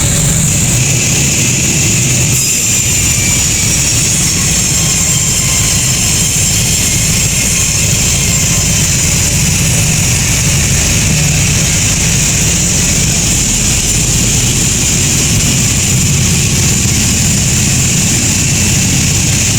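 Sawmill saw running steadily, a high whine over a low machine drone.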